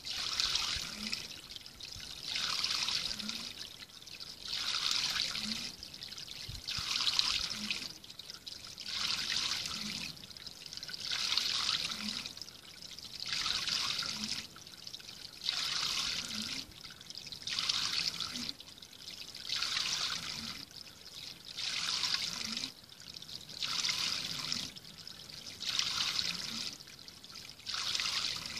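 Spring water trickling from a spout into a small stone pool, the flow swelling and falling in regular surges about every two seconds, each with a soft low plunk.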